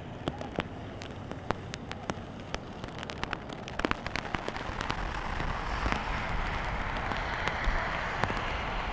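Heavy rain falling on floodwater: a steady hiss with many sharp drop clicks. About halfway through, the hiss thickens and a low rumble joins.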